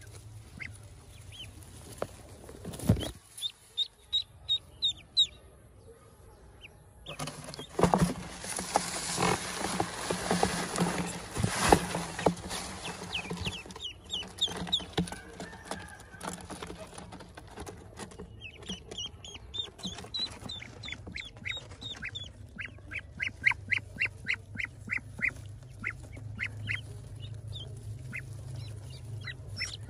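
Newly hatched Pekin ducklings peeping in runs of short, high, rapidly repeated calls. For several seconds in the middle, a louder rustling noise covers them.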